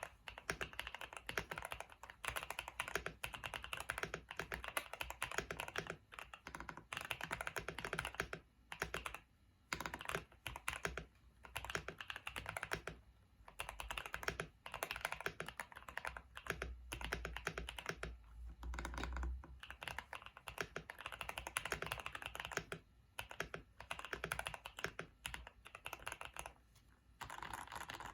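Typing on a GMK67 mechanical keyboard with Akko V3 Cream Blue Pro tactile switches and Hong Kong style keycaps: fast runs of keystrokes broken by short pauses.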